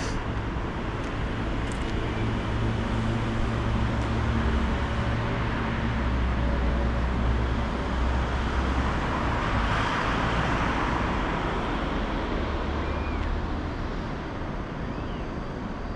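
Steady urban traffic noise with a low rumble, swelling about ten seconds in.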